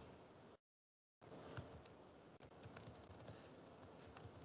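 Faint computer keyboard keystrokes, a scattered run of light clicks, as a password is typed in. The audio cuts out completely for about half a second near the start.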